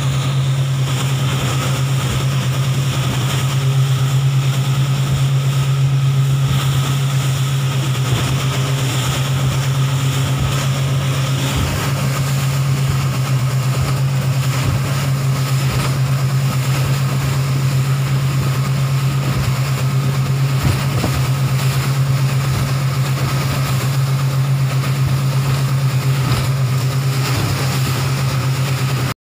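Boat's outboard engines running steadily: a constant low hum over a wash of noise, unchanging throughout.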